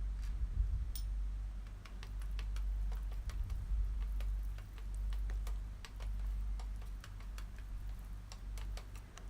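Cashews and raisins frying in ghee in a pan: light, irregular clicks and crackles, several a second, as the ghee spatters and the nuts are stirred.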